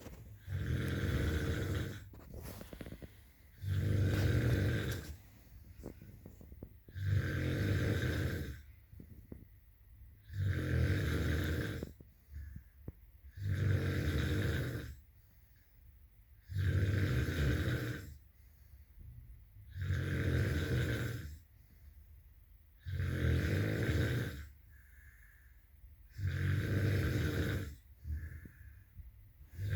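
A sleeper snoring in a steady rhythm, one snore on each breath about every three seconds, with quieter breathing in between.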